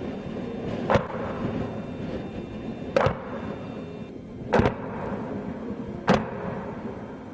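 Multiple rocket launcher firing: four sharp blasts, spaced about one and a half to two seconds apart, over a steady low rumble.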